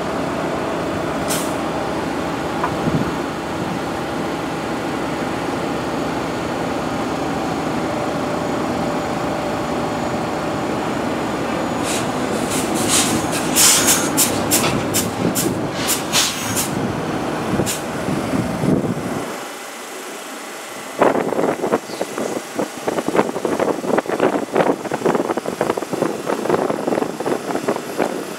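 Bombardier R62A subway train moving slowly along the track: a steady low rumble, with a cluster of sharp high squeals and clicks around the middle. In the last third the rumble drops away and a fast, irregular rattling clatter takes over.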